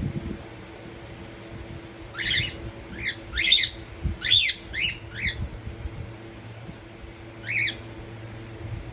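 Pet cockatiel chirping: a quick run of about seven short calls, each sliding up and down in pitch, starting about two seconds in, then one more call near the end, over a steady low hum.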